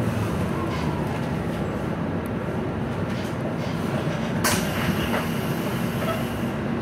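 MAN NL323F Lion's City city bus running at low speed, heard from inside the cabin: steady diesel engine and road noise. About two-thirds of the way through, a sharp burst of compressed-air hiss runs on for about two seconds as the pneumatic front door opens at a stop.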